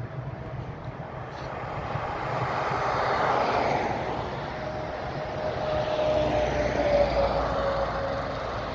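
Road traffic passing on the road, swelling twice. Near the end a lorry drives by close with a deep engine rumble and a steady whine that sinks slightly in pitch as it passes.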